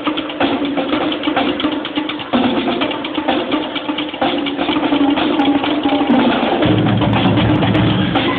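Drumline of snare drums, quad tenor drums and bass drums playing a fast cadence, dense rapid strokes throughout. A heavy low beat comes in strongly near the end.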